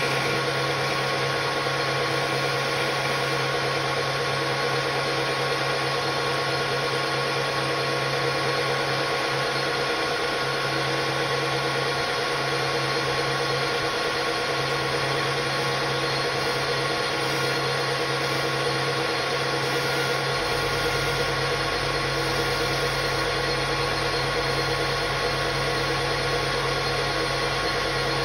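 AL-1324 centre lathe running with its chuck spinning: a steady motor and gear-train hum with a whine of several held tones. A deeper low hum comes in suddenly about twenty seconds in and stays.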